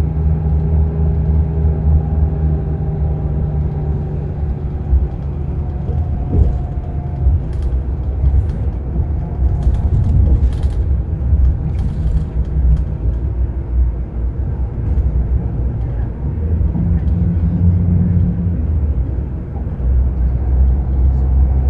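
Scania K-360 coach's diesel engine running steadily, its low drone shifting slightly in pitch now and then, with a few short hisses in the middle.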